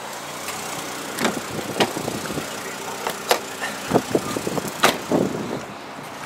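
2001 Acura 1.7 EL's four-cylinder engine idling steadily, with footsteps and several sharp clicks and knocks over it; the loudest knock comes about five seconds in.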